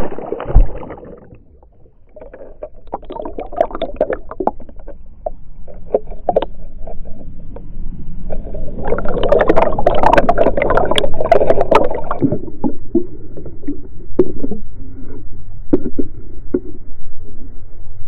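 Churning water below a dam, heard underwater through a GoPro's waterproof housing: a muffled rumble with crackling bubble pops and clicks, busiest around ten seconds in, then scattered ticks. A sharp knock comes right at the start.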